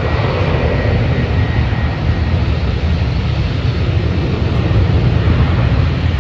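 Steady jet airliner engine noise, mixed with a heavy low rumble of wind on the microphone; a faint high whine fades out after about two seconds.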